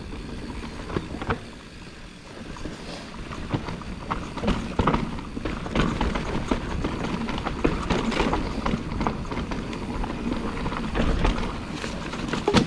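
Mountain bike rattling and knocking as it rides down a rooty rock garden, with tyres hitting roots and rocks in quick irregular strikes over a low wind rumble on the mic. The clatter grows busier and louder from about four seconds in.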